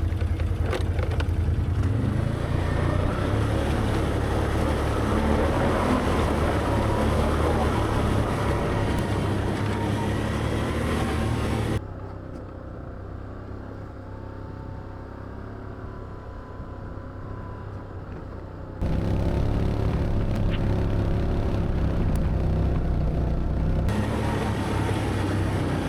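Can-Am ATV engine running steadily while riding the trail. About halfway through the sound suddenly drops and turns muffled for several seconds, then jumps back to full level.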